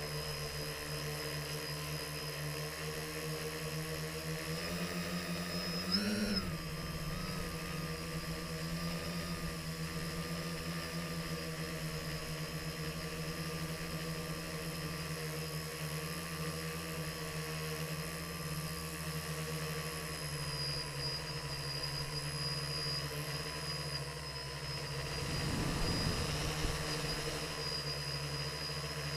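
Quadcopter drone's electric motors and propellers whirring steadily, heard from the drone's own camera. The pitch rises and swells briefly about six seconds in as the motors speed up, and a short low rumble comes about three-quarters of the way through.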